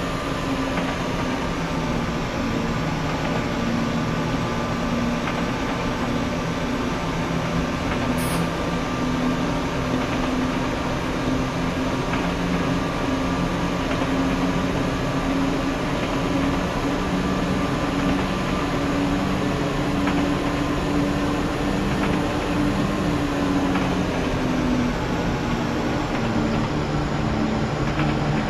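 Class 172 Turbostar diesel multiple unit running: a steady diesel engine drone with rail rumble. Its pitch sags slightly late on.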